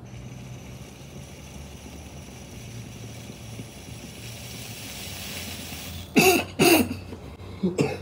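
A long steady draw of air through a glass dab rig's water chamber, a faint hiss. It breaks off about six seconds in into two hard coughs, with more coughing near the end, as the dab hits.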